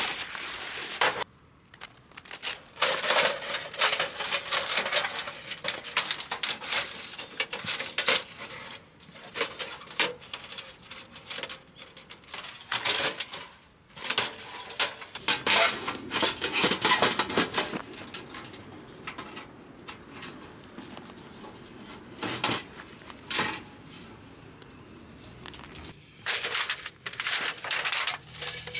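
Rustling, crinkling and light clattering of gear or litter being handled, in irregular bursts with short pauses and a quieter stretch after the middle.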